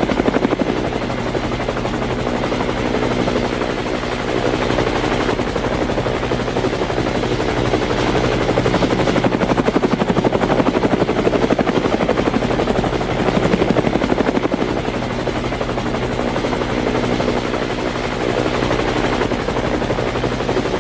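Helicopter running steadily: the rotor blades chop in a fast, even beat over a continuous engine drone, with a thin high whine.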